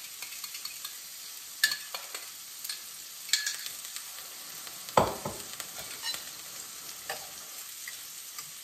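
Frozen food frying in hot oil in a pan, sizzling steadily. Over the sizzle come a few metal clinks of a utensil and one louder knock against the pan about five seconds in.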